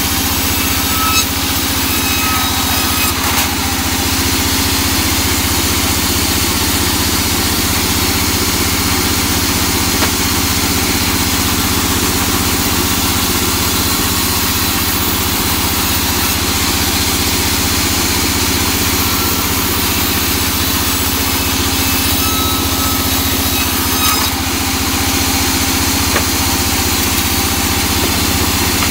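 A large band saw runs steadily and loudly while its blade rips a teak plank lengthwise.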